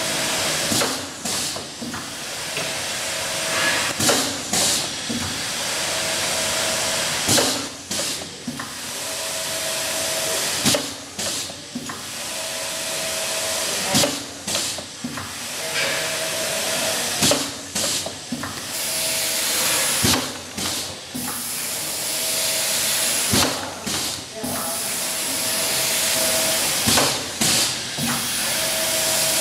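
Pasquato TTP plastic-film sheeter running through its cutting cycle: a steady hiss under a repeating pattern of a short hum and sharp knocks, about once every two seconds, as each sheet is fed and cut.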